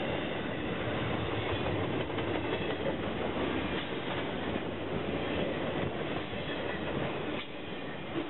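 Intermodal freight train's flatcars, loaded with highway trailers, rolling past close by: a steady rumble and clatter of steel wheels on the rails.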